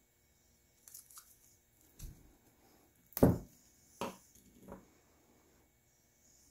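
Brass hose fittings and other small jetter-kit parts handled and set down on a wooden workbench: five separate light knocks and clicks, the loudest a little over three seconds in.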